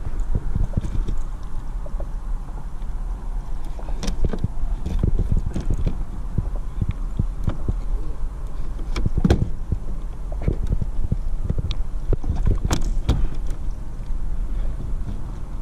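Irregular knocks and thumps on a 2021 Hobie Outback pedal kayak's plastic hull as a landed cobia and gear are handled aboard, over a steady low rumble.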